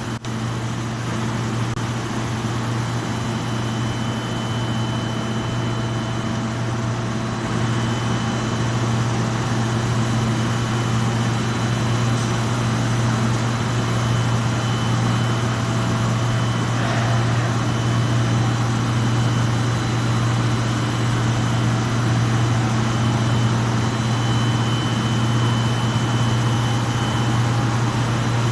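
Copper tube welding and corrugation line running: a steady low machine hum with several faint, steady high-pitched whines over a background of noise.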